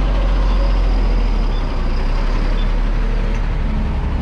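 Steady low rumble of motor traffic running close by on a city street, with no distinct events standing out.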